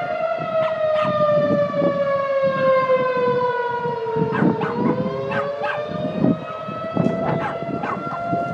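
Outdoor civil defense warning sirens sounding a tornado warning. Two siren tones are heard together: one holds a steady pitch, while the other slowly falls for about four seconds and then rises again. Short sharp sounds are scattered over them.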